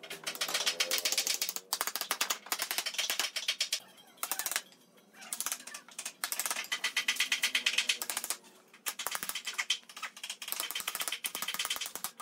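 Rapid hammer taps knocking wooden chair slats into the mortises of a rail, in several fast runs with short pauses between them.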